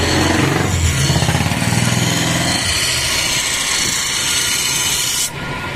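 Bench grinder wheel grinding the steel blade of a hedge shear to put a new cutting edge on it: a steady, harsh grinding hiss over the motor's hum. The grinding cuts off abruptly near the end.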